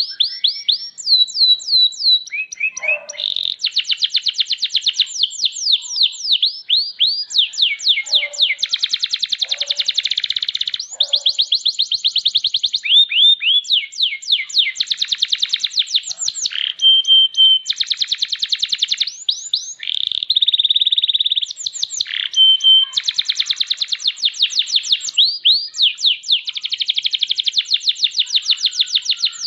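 Domestic canary singing a long, continuous song. It runs through rapid tours of repeated falling notes and fast trills, with a few short held notes and only brief pauses.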